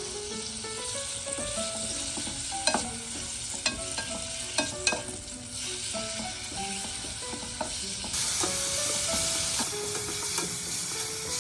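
Food sizzling and frying in a pot while it is stirred, with a utensil clicking against the pot several times; the sizzle grows louder about eight seconds in.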